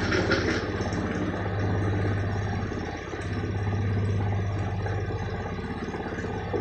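LG washing machine's drum spinning during the interim spin of a 95° cotton intensive wash: a steady motor hum that swells twice. The small load is running balanced. A short rushing noise is heard at the very start.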